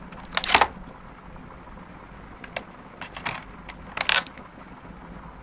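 Crinkling and rustling of a remote control's box and plastic wrap being handled, in two short louder bursts about half a second in and about four seconds in, with a few light clicks between.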